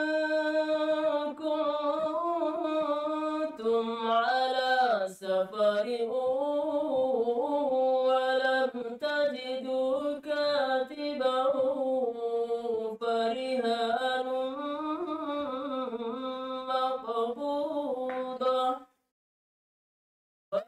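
A woman's voice reciting the Qur'an in Arabic in a melodic chant (tilawah), holding long notes that rise and fall. It stops about 19 seconds in, and after a short silence starts again right at the end.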